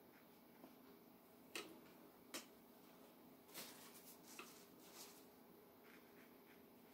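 Near silence: quiet room tone with a faint steady hum, broken by a handful of short, faint clicks and taps in the middle.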